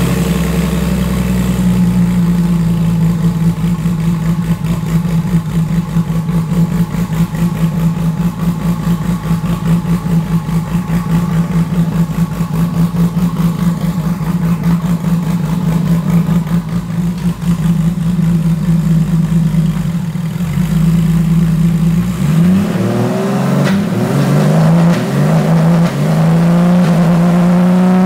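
Twin-turbo Toyota 2JZ 3.0-litre inline-six in a land-speed streamliner, freshly started and idling steadily. About twenty-two seconds in it revs up, with a single click partway up, and it holds higher revs near the end.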